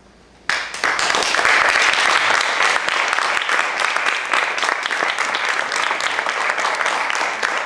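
Audience applauding: clapping breaks out suddenly about half a second in and continues dense and steady.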